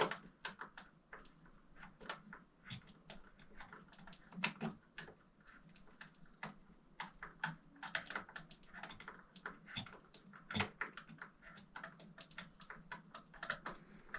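Light, irregular clicks, taps and short scrapes of small hardware being worked by hand with a screwdriver.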